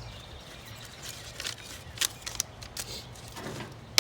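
Quiet handling noises while unpacking: a few short clicks and rustles, most of them between one and two and a half seconds in, over a low steady hum.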